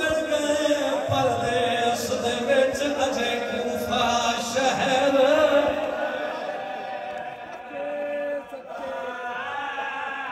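A man's voice chanting a mournful lament in long, wavering held notes: a zakir's sung masaib recitation of Imam Ali's martyrdom. It is louder in the first half and softer after about six seconds.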